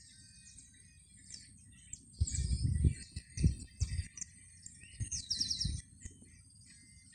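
Small cage birds chirping and twittering in short high calls and trills, with a busier burst about five seconds in. Low thumps and rustles come in between about two and six seconds in and are the loudest sounds.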